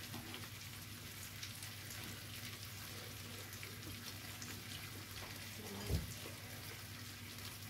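Meat sizzling on a tabletop Korean barbecue grill pan: a steady crackle of many small fat pops over a low hum, with one brief low sound about six seconds in.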